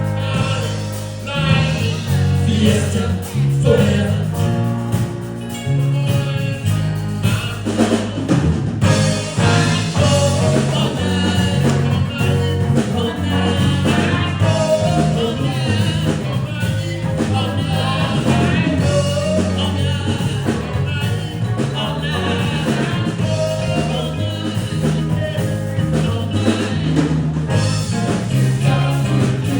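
Live band music: a singer over a drum kit and a steady bass line, in a rock and blues style.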